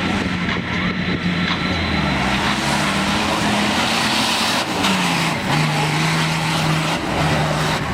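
Off-road 4x4 race vehicles' engines revving hard, the pitch rising and falling, dropping about five seconds in and then holding steady.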